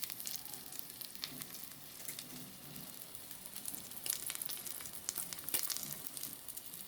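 Salmon fillet searing in hot oil in a frying pan, sizzling steadily with scattered crackles and a few louder pops.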